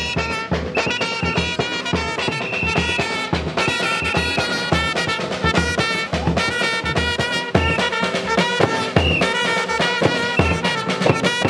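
Live brass-and-drum band: trumpets playing a brisk tune over a steady beat on a snare drum and a large bass drum.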